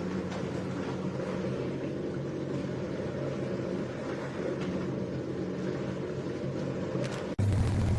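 Mini countertop dishwasher running: a steady motor hum from its wash pump. Near the end it shifts to a louder, deeper hum.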